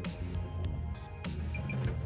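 Background music with a steady beat: a bass line under regular drum hits.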